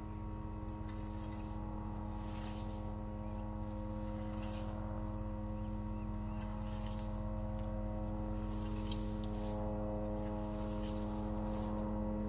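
A rake scraping through dry grass and dirt in repeated short, irregular strokes, over a steady mechanical hum that slowly grows louder.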